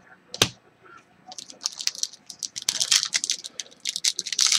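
Foil wrapper of a 2017 Bowman Chrome baseball card pack crinkling as it is handled and torn open: one sharp click about half a second in, then quick crackling that grows denser over the last two seconds.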